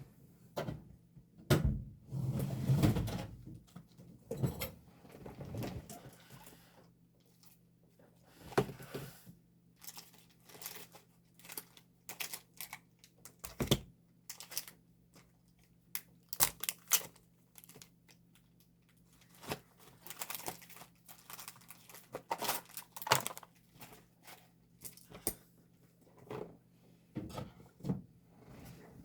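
Photocards and their packaging being handled and sorted by hand: irregular light taps, clicks and crinkling rustles, some in quick clusters.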